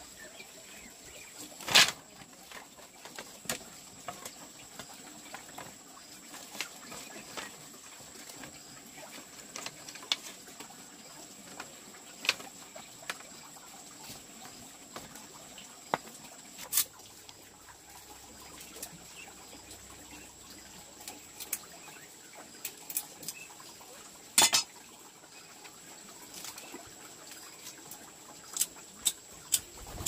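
Dishes and kitchen utensils being handled: sporadic clinks and knocks, a sharp one about two seconds in and another around twenty-four seconds, with a quick run of several near the end, over a faint steady high whine.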